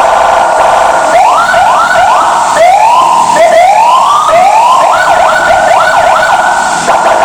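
Senken CJB 200 SA electronic car siren sounding loudly: a steady tone, then a run of repeated rising sweeps, some quick and some slower, then back to a steady tone near the end.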